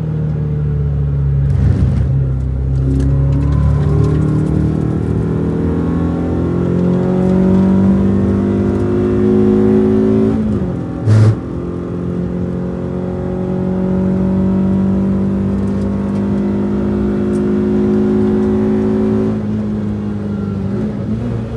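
Renault Twingo RS's 1.6-litre four-cylinder engine running hard on track. The revs climb for several seconds, fall abruptly with a short loud thump about eleven seconds in, then hold high and climb slowly again before dropping away near the end.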